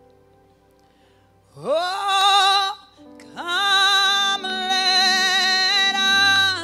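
A woman's solo voice singing slow worship through a microphone: about one and a half seconds in she slides up into a long held note, breaks off, then slides up again and holds a second, longer note. Soft keyboard chords sustain underneath.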